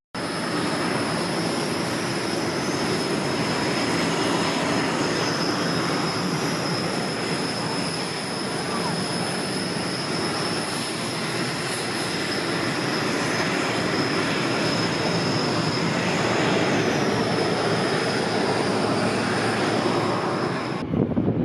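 Jet engines of Canadair CT-114 Tutor aircraft running, a steady high whine over a loud, even rushing noise, which changes abruptly shortly before the end.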